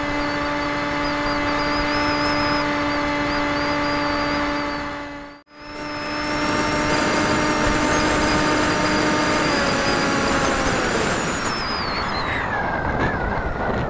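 RC model aircraft's motor heard from a camera on board: a steady, high-pitched whine over rushing air. It cuts out briefly about five seconds in, then returns. Near the end it falls in pitch and fades, leaving mostly wind noise.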